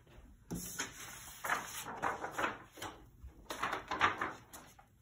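Paper and fabric rustling in several short bursts as a sublimation pillowcase and its brown kraft protective paper are handled and turned over on a heat press.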